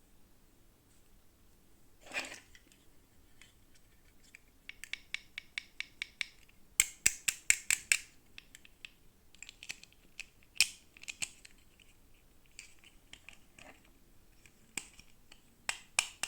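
Toy packaging and plastic parts handled by hand: bursts of sharp plastic clicks, snips and scratches, with a quick run of regular ticks partway through and the loudest cluster of clicks a little after that.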